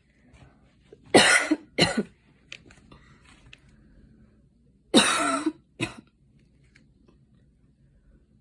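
A woman coughing after a five-minute run: a pair of coughs a little over a second in, then another pair about five seconds in, each pair a longer cough followed by a short one.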